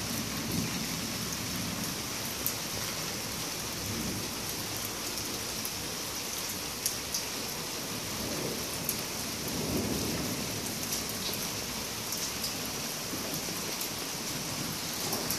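Heavy monsoon rain falling steadily in a thunderstorm, with a few sharp ticks of drops. A low rumble of thunder swells about eight to ten seconds in.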